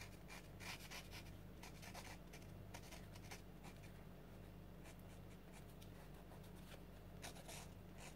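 Felt-tip neon marker scratching and rubbing across a gesso-coated paper page in many short, quick strokes, faint.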